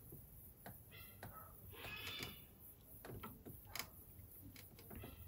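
Faint scraping and a few light ticks as an inspection camera's probe cable is fed and turned in an engine's spark plug hole, against near-silent room tone.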